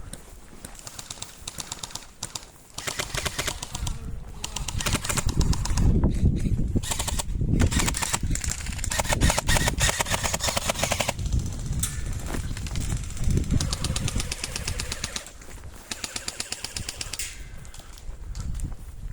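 Airsoft guns firing on full auto: long runs of rapid, evenly spaced clicks lasting several seconds each, with a short break about halfway through.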